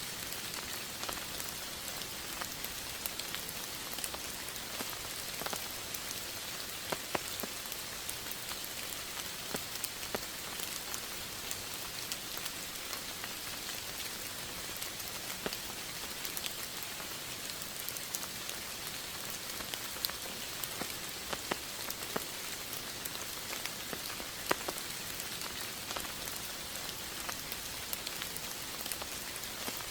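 Steady rain falling, an even hiss with single drops ticking sharply here and there.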